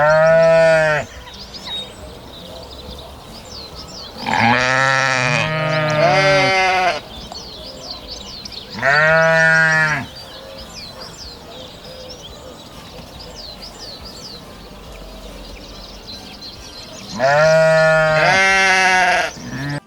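Sheep bleating: about six loud calls of a second or so each, two of them coming close together as pairs, with long gaps between. Small birds chirp steadily in the background.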